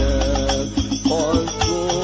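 Arabic sholawat singing: a voice carrying a wavering, ornamented melody over hadrah frame drums, with sharp drum strikes, jingling rattles and a low drum thump several times a second.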